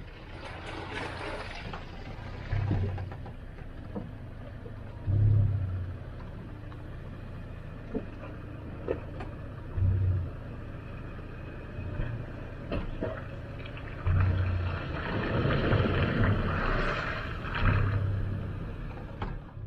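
Off-road vehicle driving a dirt trail, a steady rumble with deep gusts of wind buffeting the microphone every few seconds and a few sharp clicks.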